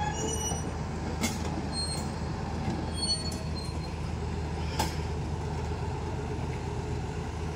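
Heavy diesel engine running steadily with a low hum, broken by two sharp metallic knocks, one about a second in and another a few seconds later.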